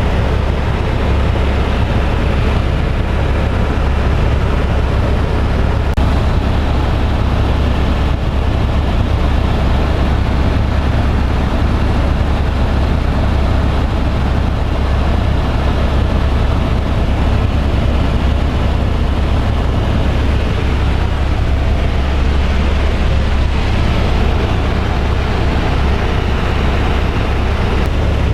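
Helicopter in flight heard from inside the cabin: steady, loud running noise, heaviest low down, with an even hiss on top and no change throughout.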